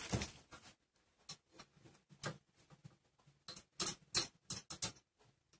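Sharp clicks and small knocks from hands working the keyless chuck of a Scheppach DP19 Vario drill press while the machine is stopped, as a drill bit is changed for an 8 mm one. There is a soft knock at the start, scattered single clicks, and then a quick run of six or seven sharp clicks about four seconds in.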